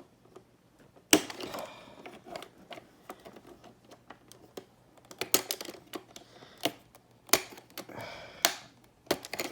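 Irregular plastic clicks and knocks from handling a toy piano's open battery compartment and its AA batteries, with a few sharper knocks among them.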